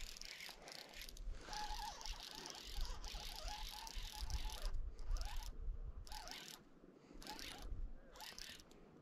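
Fly reel's click-and-pawl drag ratcheting in spurts with short pauses while a hooked fish is played.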